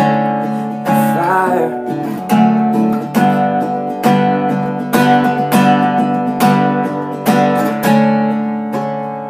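Acoustic guitar strummed in steady chords, one strum about every second, an instrumental stretch between sung lines.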